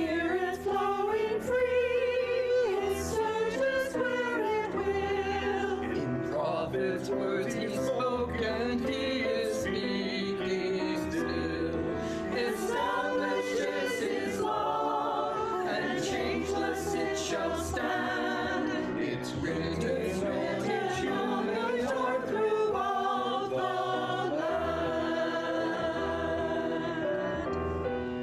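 Mixed church choir of women's and men's voices singing an anthem with piano accompaniment. The voices were recorded separately and blended into one.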